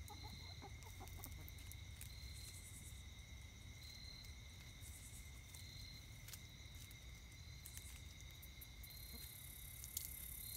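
Buff Orpington hens clucking softly and faintly while foraging, over a steady high insect chorus that pulses every couple of seconds.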